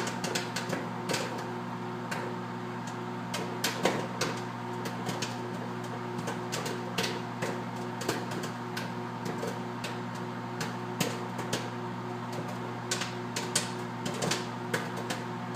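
Popcorn kernels popping in a microwave oven: sharp, irregular pops, a few every couple of seconds, over the oven's steady running hum.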